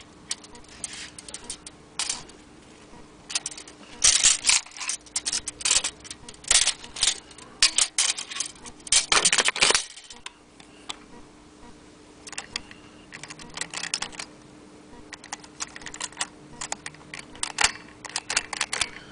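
Aluminium Blickensderfer Featherweight typewriter being typed on: irregular runs of sharp key clacks, heaviest in the middle and again near the end.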